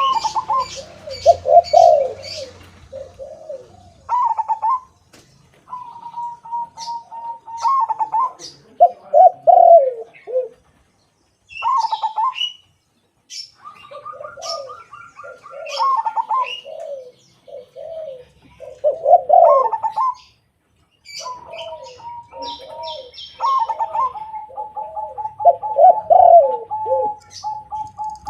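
A zebra dove and a spotted dove cooing against each other in phrases a few seconds long, with short pauses between. Lower rolling coos are mixed with clear, longer-held higher notes and short high chirps.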